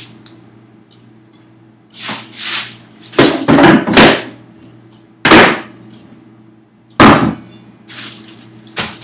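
Kitchen cabinet doors banging and things knocked about in the cupboards: a cluster of knocks about three seconds in, then single loud bangs about five, seven and nine seconds in.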